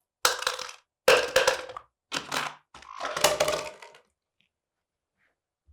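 A parrot's beak crunching and cracking at a hard object in four bursts over about four seconds, then stopping.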